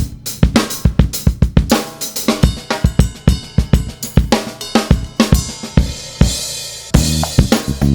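Background music with a drum kit beat: kick, snare and hi-hat over bass and guitar.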